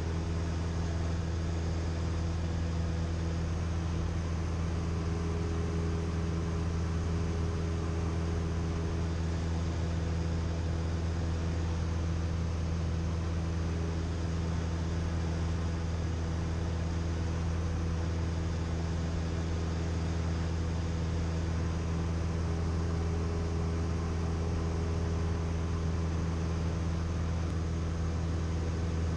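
Cessna 172M's four-cylinder Lycoming O-320 engine and propeller droning steadily in cruise, heard from inside the cockpit as an unchanging low hum.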